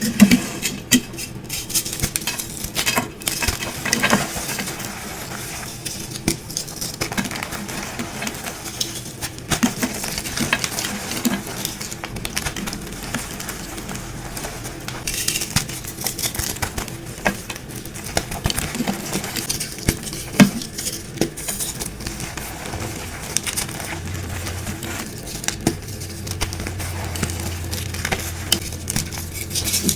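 Dyed gym chalk being crushed and crumbled: steady crunchy crackling with frequent sharp cracks and taps.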